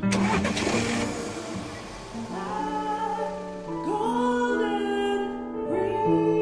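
Music with a woman singing long held notes that slide up into each new note. A bright crash-like burst opens it and fades out over about a second.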